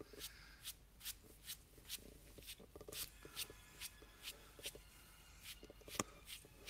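Faint, quick brush strokes of a paintbrush dabbing paint onto a turned wooden vase, about two or three strokes a second.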